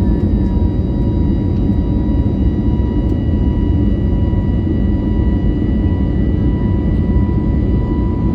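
CFM LEAP-1A turbofan engines of an Airbus A321neo at climb thrust, heard from inside the cabin: a steady rumble with a thin, steady whine over it.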